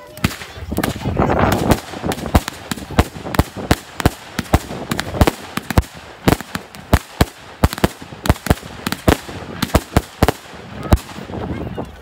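Fireworks display: shells bursting overhead in a quick, irregular string of sharp bangs, about two to three a second, with a dense crackling rush about a second in.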